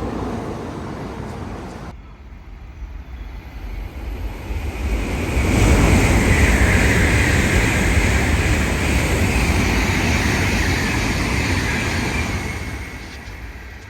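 Shinkansen bullet train passing at high speed: a rush of air and rail noise that builds, holds loud for about seven seconds with a strong hiss, and then fades away. Before it, a different steady noise cuts off abruptly about two seconds in.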